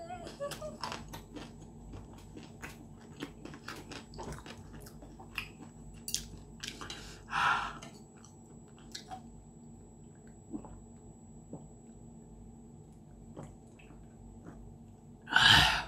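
Close-up crunchy chewing of battered, fried chicken-breast cartilage: many crisp crackling crunches, thicker in the first half and sparser later. Near the end, a loud breathy burst follows a swig from a beer can.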